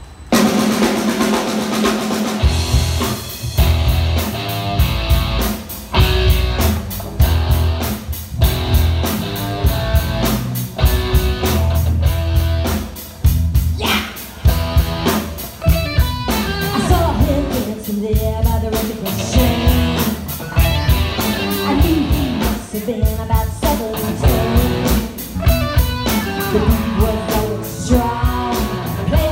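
Live band playing a rock song: drum kit keeping a steady beat, electric guitar and keyboards, with a woman singing lead into a microphone through the PA speakers. The band kicks in suddenly right at the start.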